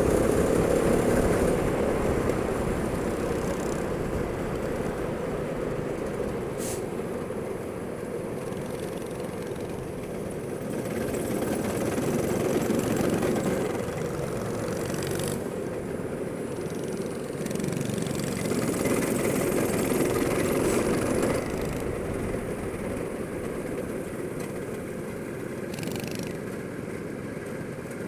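Go-kart engine running continuously, its note swelling and easing off as the kart accelerates and slows. A few brief clicks are heard along the way.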